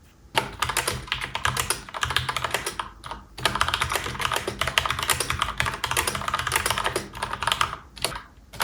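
Fast typing on a Lofree DOT typewriter-style mechanical keyboard: a dense, rapid stream of key clicks during a speed typing test. There is a brief pause about three seconds in and another near the end.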